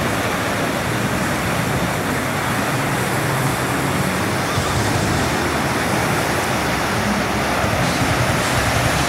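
Ocean surf breaking and washing over shore rocks, a steady rushing noise.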